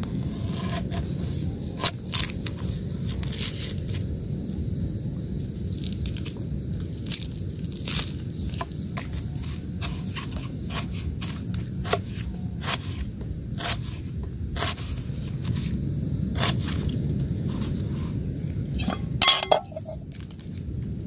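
Shallots being cut and handled for a pot of rice: irregular sharp knife clicks and scrapes over a steady low rush, with a louder cluster of knocks near the end.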